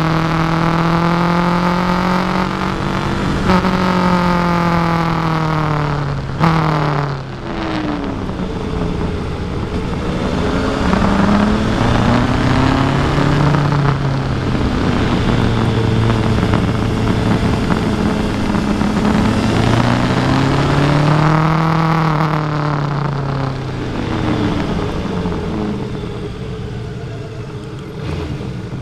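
Kawasaki Versys 1000 SE's inline-four engine on the move, its pitch rising and falling several times as the throttle is opened and closed, with a sudden drop about six seconds in. A steady rush of wind runs under it.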